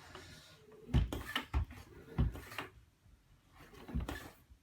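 Airwave floor pump being worked by hand to inflate a mountain bike tyre: three strokes about a second apart, each a thump with a hiss of air, as the tyre pressure rises toward 30 psi.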